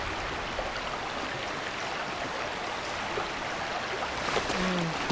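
A brook running steadily, an even rush of flowing water.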